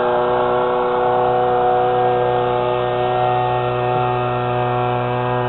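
Homemade boat motor built from a brush cutter's engine, running at a steady speed with an unchanging buzzing drone.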